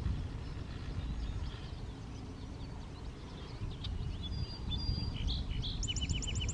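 Small songbirds chirping and calling, with a quick trill of about eight repeated notes a second near the end, over a steady low rumble.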